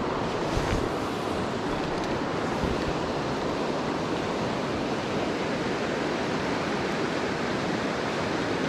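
Steady rush of river water running over shallow riffles. A couple of faint knocks come in the first three seconds.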